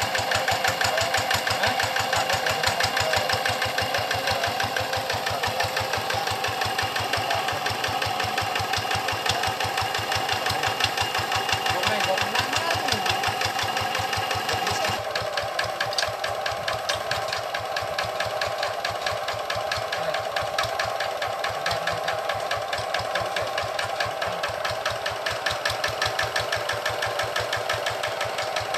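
Single-cylinder diesel engine of a Quick G1000 hand tractor running steadily with an even, rapid chugging beat. The sound changes abruptly about halfway through.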